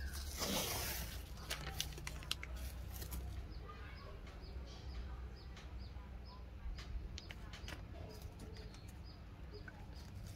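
Tape being pulled off its roll and wrapped around a PVC pipe fitting: a short rasp of tape unrolling about half a second in, then light crackles and handling clicks. Faint high chirps repeat through the middle.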